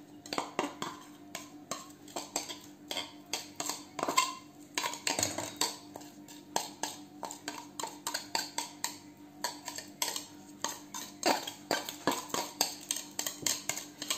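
Repeated light clinks and scrapes of a utensil against a glass bowl as chopped shallots are scraped out into a pan of apple cider, irregular, a few taps a second.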